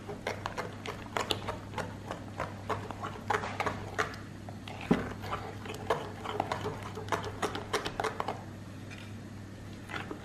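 A metal spoon stirring flour into a thin potato-and-milk batter in a glass mixing bowl. Quick, irregular clinks and scrapes of the spoon against the glass, thinning out near the end.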